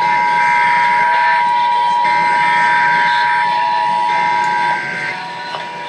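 Emergency Alert System attention signal: the 853 Hz and 960 Hz two-tone alert sounding steadily, then cutting off about three-quarters of the way through. Over it, from another relaying station, come three roughly one-second bursts of the SAME header's screeching digital data.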